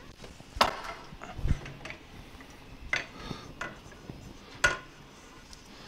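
Knocks and clacks of a CR-10S 3D printer's aluminium-extrusion frame being handled and shifted on a wooden table: about five sharp knocks spread over the few seconds, with rustling handling noise between them.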